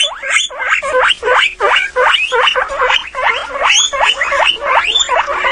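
A small animal giving a rapid run of short, high squeals that rise in pitch, about three or four a second.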